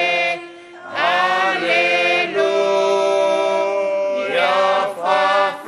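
A group of voices singing a hymn together in long held notes, in phrases with short breaks, the last phrase on the word 'Alleluia'.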